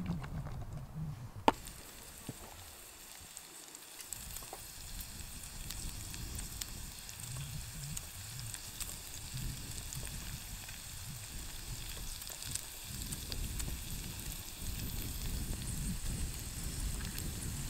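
Diced vegetables sizzling and crackling in hot oil in a frying pan on a gas camping stove. It starts abruptly with a sharp click about a second and a half in, and a low rumble runs underneath.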